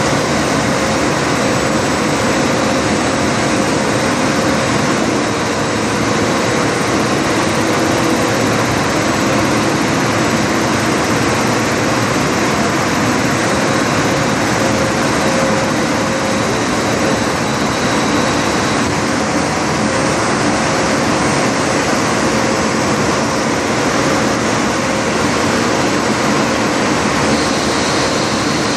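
Ten-colour rotogravure printing press running at production speed, the film web moving through it: a loud, steady machine noise with a few faint steady whines over it.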